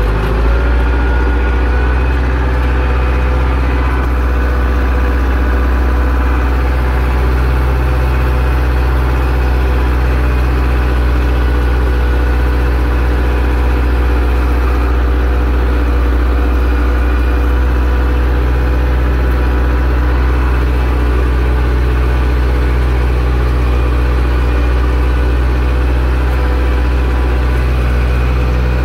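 Zetor 6245 tractor's four-cylinder diesel engine running steadily at a constant speed, a deep, even drone.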